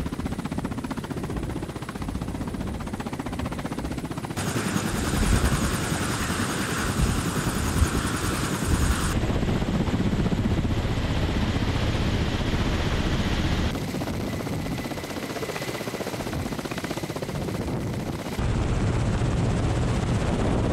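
Ka-52 attack helicopter's coaxial rotors and twin turboshaft engines running loud and steady, with a deep rotor thrum under a turbine whine. The sound changes abruptly every four to five seconds, in places heard close against the fuselage.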